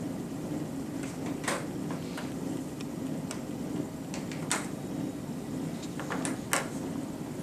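Quiet classroom with a steady low hum and scattered small clicks and taps, the sharpest about four and a half and six and a half seconds in.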